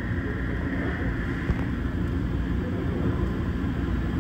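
Steady low hum and rumble of running shop machinery.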